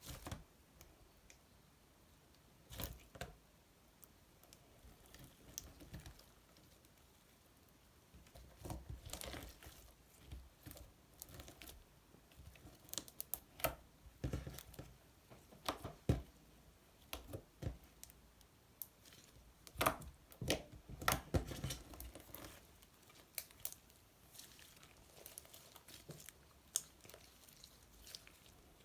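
Slime being kneaded, stretched and poked by hand: irregular sticky crackles and squelches, clustered in bursts with quieter gaps between.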